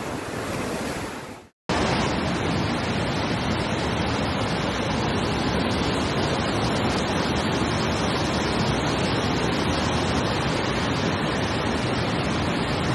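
Floodwater rushing, mixed with wind buffeting a phone microphone: a steady, even roar of noise. It cuts off for a split second about one and a half seconds in, then resumes unchanged.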